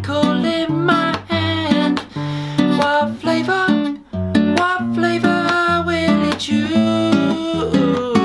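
Acoustic guitar strummed in chords, with a man singing a children's song over it.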